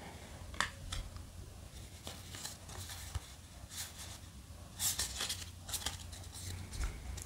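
Trading cards being flicked through and slid against one another in the hands: soft scattered swishes and light clicks of card stock, busiest about five seconds in.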